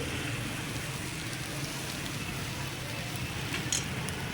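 Steady sizzling of food frying on a street-stall griddle, over a low hum, with a short sharp clatter near the end.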